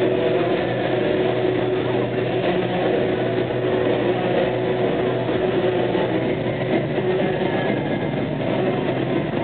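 Motorcycle engines running hard and steady in a continuous drone as the bikes loop around inside a steel-mesh globe.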